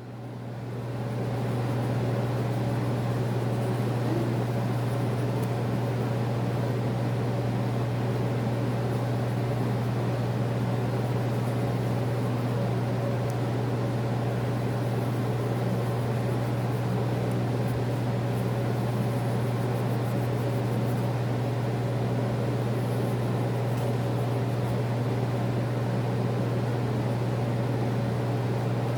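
Steady machine hum, like a fan or air conditioner running, rising in over the first couple of seconds and then holding level.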